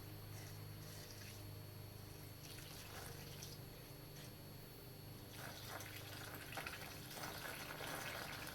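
Engine coolant being poured slowly from a jug through a funnel into the pressurized coolant reservoir, trickling and gurgling, busier in the last three seconds, over a steady low hum.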